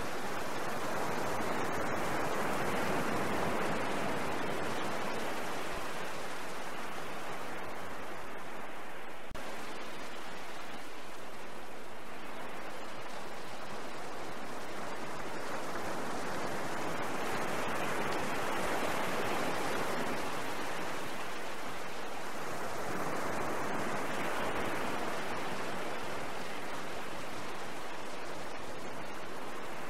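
Small waves washing onto a sandy river beach: a steady rush of water that swells and eases slowly every several seconds.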